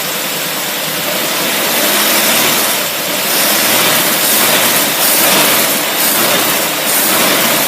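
Boat engine running on a Holley 600 CFM vacuum-secondary marine carburetor, blipped up a little several times so the sound swells and falls back. The engine was started moments earlier and is still warming up.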